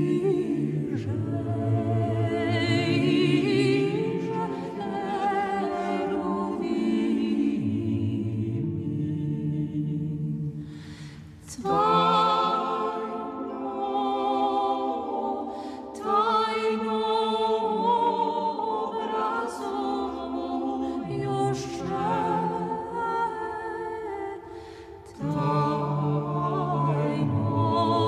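Orthodox church chant sung a cappella by a choir with a solo female lead, in long held phrases over a sustained low note. The singing dips briefly for breaths about 11 and 25 seconds in.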